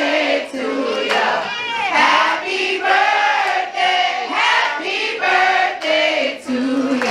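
A crowd of many voices singing and chanting together, loud, in short repeated phrases.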